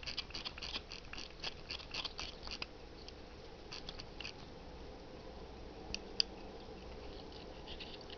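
Elgin size 18S pocket watch being wound at the crown: a quick run of faint ratchet clicks, about five a second for nearly three seconds, then a few scattered clicks and one sharper click about six seconds in.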